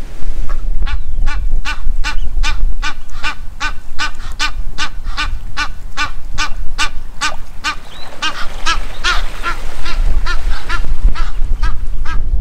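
A waterbird honking over and over, about three calls a second, starting about half a second in and growing a little louder and busier in the second half. Wind rumbles on the microphone underneath.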